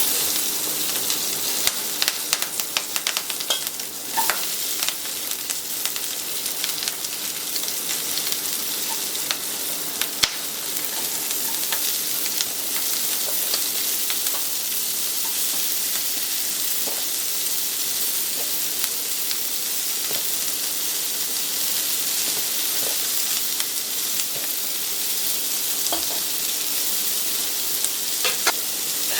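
Food sizzling steadily in hot oil in a pan, stirred with a metal utensil that clicks and scrapes against the pan now and then, most often in the first few seconds and near the end.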